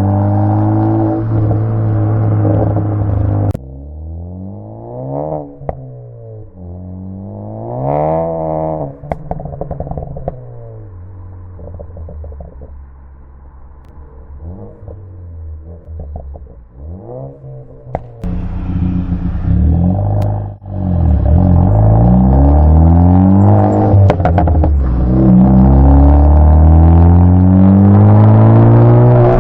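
Tuned MK3 Ford Focus ST engine and exhaust revving up and falling back again and again, with short, sharp crackles and pops from the exhaust on throttle lifts. This is the crackle tune's shorter 'progressive' setting. It is quieter through the middle and loud again in the last third.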